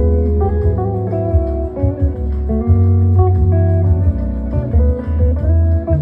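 Guitar music: plucked guitar notes moving over a strong, deep bass line.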